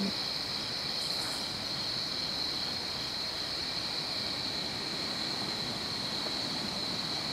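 Night insects chorusing in one steady high-pitched drone over a constant background hiss.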